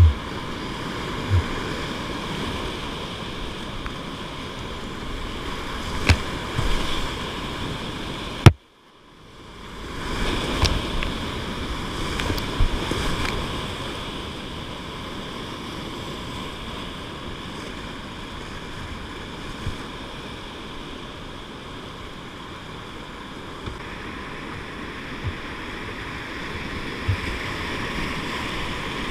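Whitewater rapids rushing around a kayak, with occasional paddle splashes. About eight and a half seconds in a sharp knock is followed by a brief drop-out of the sound, after which the rushing water comes back.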